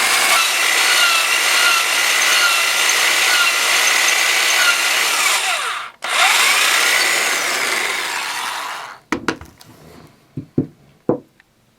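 Power drill with a 3/8-inch bit boring into the end grain of a wooden furniture leg. About six seconds in it stops for a moment, winding down and back up, then runs on and stops near nine seconds. A few light knocks follow.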